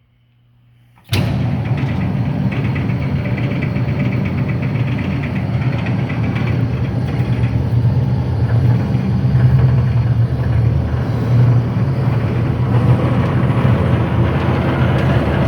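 Powermatic Model 87 bandsaw switched on about a second in, its 3 hp three-phase motor and blade running with a steady hum.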